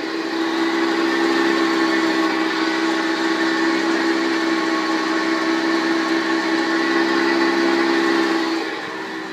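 Steady droning whine made of several fixed tones from the drivetrain of a Honda Accord V6 with a six-speed manual gearbox, a noise that does not follow engine speed and that the owner suspects comes from the transmission. It drops in level near the end.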